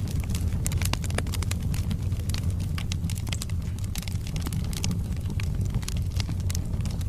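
Log fire in a fireplace burning: a steady low rumble of the flames with frequent irregular sharp crackles and pops from the burning wood.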